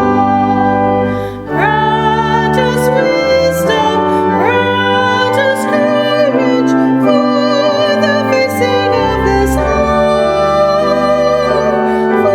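Singing with vibrato, the voice sliding up into notes, over sustained keyboard chords that change every second or two.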